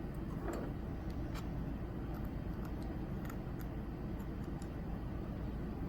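Faint, scattered small clicks and taps over a steady low background hum: handling of the eye-cream container while the cream is applied to the back of a hand.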